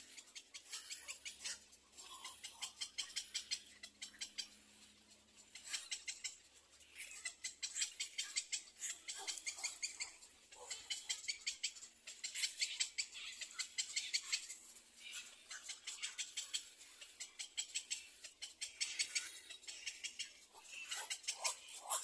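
Young cormorants in the nest giving rapid, high-pitched ticking chatter, in repeated bursts of one to three seconds with short pauses between.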